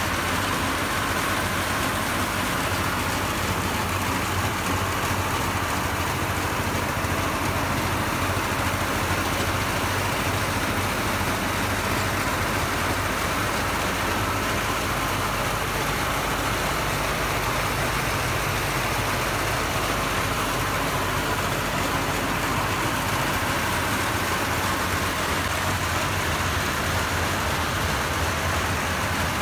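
Engine-driven Tân Việt rice threshing machine running steadily with a constant low drone while bundles of rice stalks are fed into its threshing drum.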